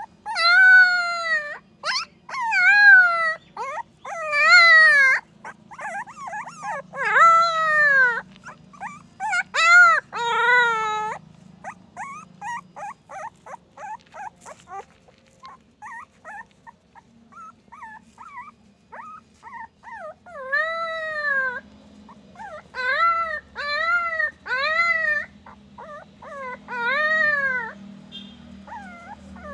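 Young puppy crying: a run of high-pitched, drawn-out whines that rise and fall in pitch, roughly one a second, with a middle stretch of shorter, fainter whimpers before the long cries return.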